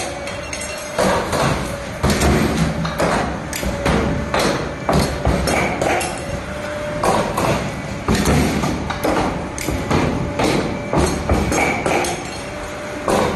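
Hydraulic R-clamp wire-forming machine running, its cylinders and forming tools clunking over and over, roughly a knock every half-second.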